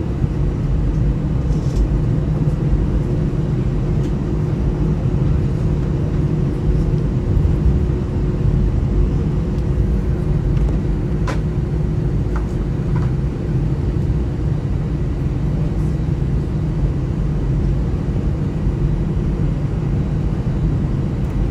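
Steady low rumble of an airliner cabin, with a steady hum that fades about halfway through and a single sharp click near the middle.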